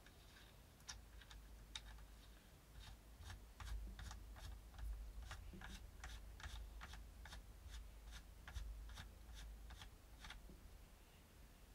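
Faint, irregular clicks and taps of small metal parts being handled, several a second, with a low handling rumble, as a 3-lug muzzle adapter is fitted by hand onto a pistol's threaded barrel.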